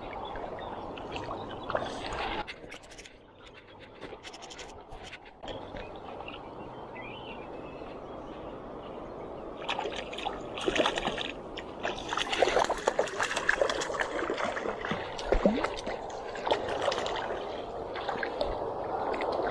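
Shallow river water trickling and splashing, turning louder and choppier about halfway through.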